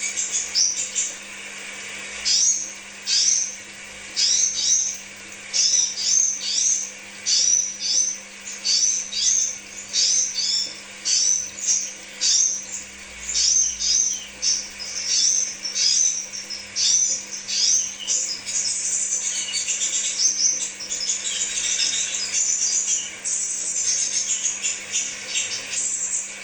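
Crimson sunbird singing: quick phrases of very high, thin chirps one after another, thickening into an almost continuous twitter in the second half, over a steady low hum.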